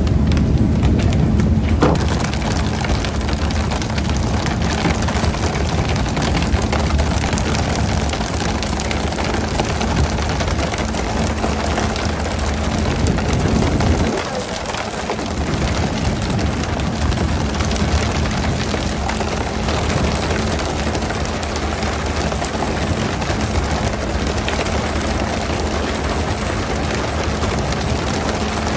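Steady rushing noise of water spray and wind on a fishing boat at sea, over a low steady engine hum, with many small clicks and knocks scattered through it. The low hum drops out briefly about halfway through.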